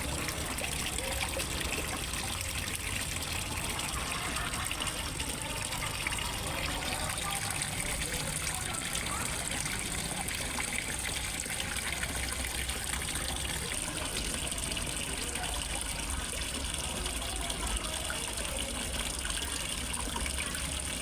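Water from a fish pond's waterfall, running and trickling steadily into the pond.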